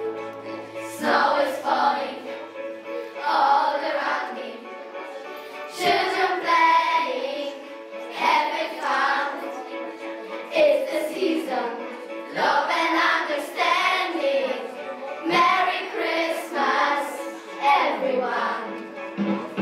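Children's choir singing a cheerful Christmas song in English, phrase after phrase, with music behind the voices.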